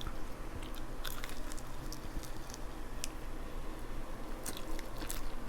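Close-miked chewing: wet, squishy mouth sounds and small clicks of someone eating sauced chicken wings.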